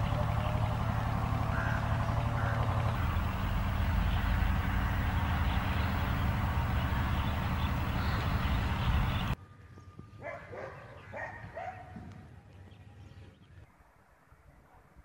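A loud, steady rumbling noise cuts off suddenly about nine seconds in. A quieter outdoor background follows, with a few faint bird chirps.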